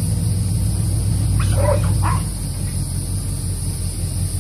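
A hunting dog barking twice, about a second and a half in and again half a second later, over a steady low rumble.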